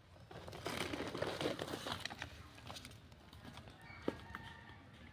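Crackling, rustling noise for about two seconds, like dry material being handled or stepped through, followed by a few scattered clicks and one sharp click near the end.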